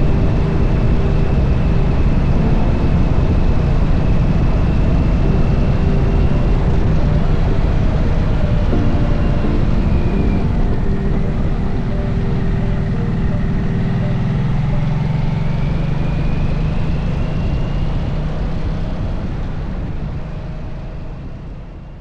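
2023 Harley-Davidson Nightster Special's 975 cc liquid-cooled V-twin running on the road, with wind and road rush. Around the middle it eases off and drops in pitch as the bike slows, then its pitch rises again as it speeds back up, and the sound fades out near the end.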